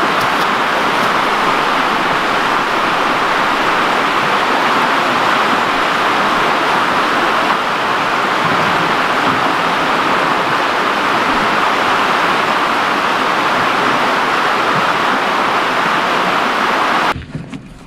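Steady rush of fast-flowing water, an even roar with no rhythm, which cuts off suddenly about a second before the end.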